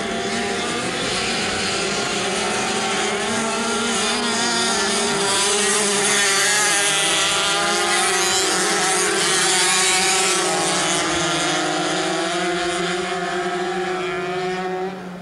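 Two racing motorcycles' engines running hard at high revs, their pitch rising and falling as the riders accelerate and back off through the turns, loudest about ten seconds in.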